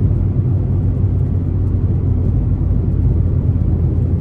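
Volkswagen Golf GTI Mk7 cruising, heard from inside the cabin: a steady low drone of engine and road noise with no sudden changes.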